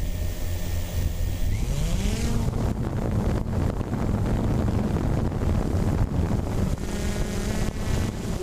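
Vehicle engine running, its pitch rising about two seconds in as it speeds up, then holding steady.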